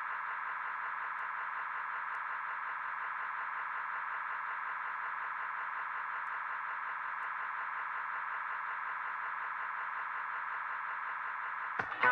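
A steady, unchanging static-like hiss confined to the midrange, with nothing above it, like a radio or telephone line. Near the end, dance music cuts in loudly.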